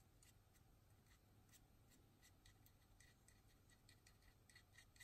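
Near silence: room tone with faint, irregular light ticks, several a second.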